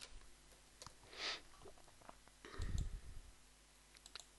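Faint computer keyboard and mouse clicks as numbers are typed into a dialog box and a button is clicked. A soft hiss about a second in and a low muffled sound near the middle.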